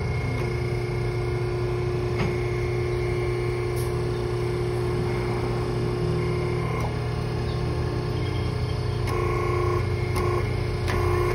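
Hydraulic hose crimping machine running with a steady hum, with short steady tones switching on and off in the last couple of seconds.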